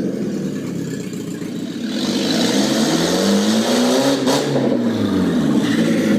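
Volkswagen Polo 86c engine on an open exhaust manifold, revving: the pitch sinks briefly, climbs for about two seconds, then falls back. A single sharp crack comes at the top of the rev.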